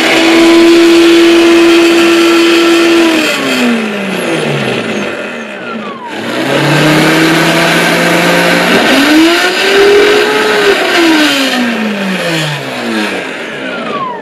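Brushless electric motor of an RC power boat running on 12-cell LiPo, its whine rising as it speeds up, holding a high pitch for a few seconds, then winding down, over a steady hiss. After a sudden cut about six seconds in, the same rise and fall comes again.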